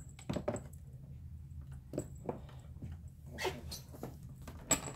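Scattered light knocks and clicks from a toddler handling a plastic toy play house, with one sharper click near the end.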